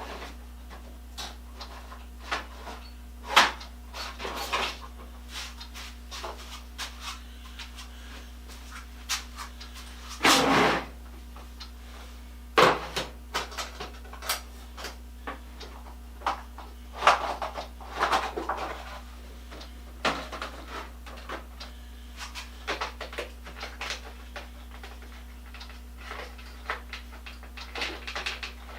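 Irregular clinks, knocks and short scrapes of steel parts and tools being handled at a workbench, over a steady electrical hum.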